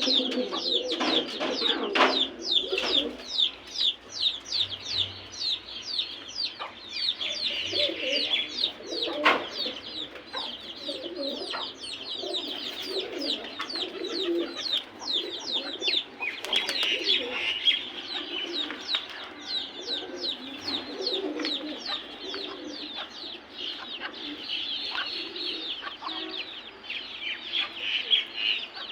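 Domestic pigeons cooing in a loft, alongside a constant stream of rapid high-pitched chirps from other birds and a few chicken clucks.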